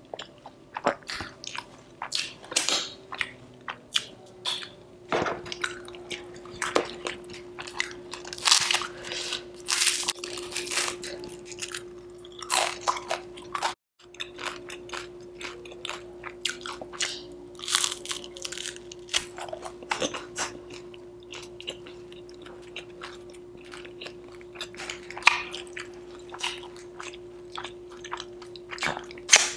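Close-up chewing and crunching of crisp butter masala dosa, in irregular bites and crackles.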